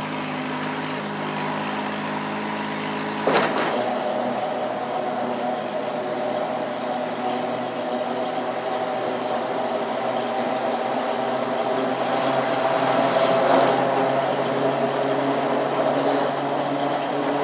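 Golf cart driving, a steady hum of motor and tyres over road and wind noise. A single sharp knock comes about three seconds in, after which the hum runs higher and louder.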